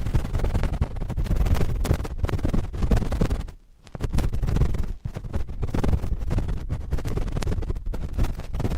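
Cotton swabs scratching and rubbing directly on a microphone: a dense run of rapid, close scratching strokes, breaking off briefly about three and a half seconds in.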